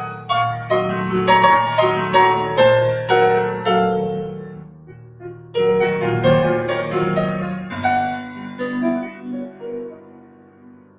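Grand piano played solo: a run of struck chords about two a second, a brief lull about five seconds in, then a new phrase that thins out and fades near the end.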